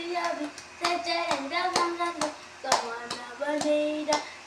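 A young child singing a children's song in held notes, with hand claps keeping a steady beat.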